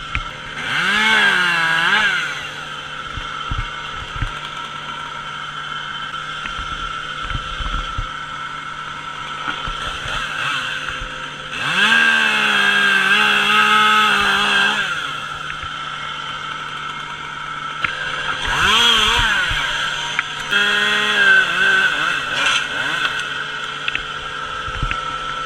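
Chainsaw idling, then run up to full throttle in four bursts, the longest about three seconds. Its pitch sags and recovers within each burst, as it does when the chain bites into wood.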